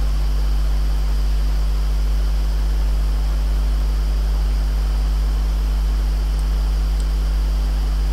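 Steady electrical mains hum with hiss: a strong low drone with fainter overtones above it, unchanging throughout.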